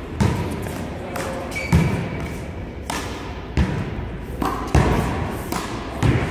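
One-wall handball rally: the small ball slapped by hand, striking the wall and bouncing on the court, about eight sharp thumps at irregular intervals of half a second to a second, echoing in a large hall.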